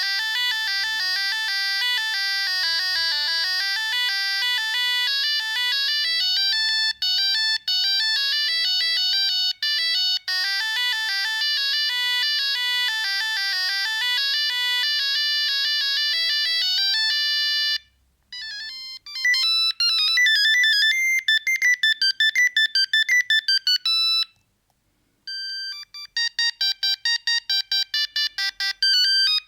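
Siemens C45 mobile phone playing its ringtones through its small speaker as electronic beeping melodies. One tune runs for most of the time and stops. After a short pause a faster tune plays, and after another brief silence a third starts with rapidly repeated notes.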